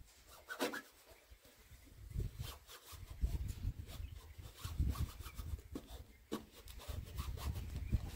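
Faint rubbing and crinkling of a vinyl sticker and its paper backing as fingers press and smooth the strip onto the painted metal of a tractor bonnet, with scattered short crackles.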